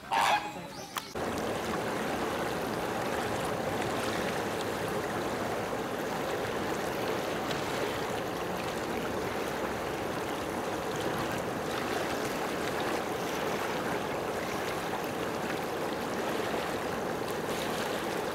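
A flamingo's honking call in the first second, then a steady rush of water that carries on without change.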